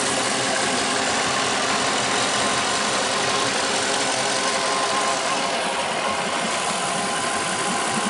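Inboard V8 engine of a 2008 Malibu Wakesetter 23 LSV wakeboard boat running steadily at idle, heard up close in the open engine compartment.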